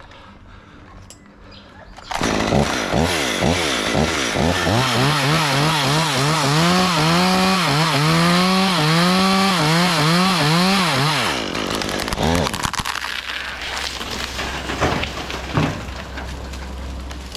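Two-stroke chainsaw cutting into a tree, starting suddenly about two seconds in. Its engine speed rises and falls repeatedly under load for about ten seconds, then settles to a low idle with scattered knocks and cracks.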